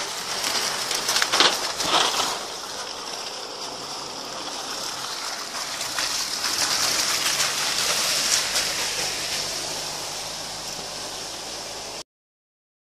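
Off-road vehicle working through wet mud and puddles: a steady rushing, splashing hiss with a few sharp knocks about one to two seconds in, and a faint engine hum under it in the second half. The sound cuts off abruptly near the end.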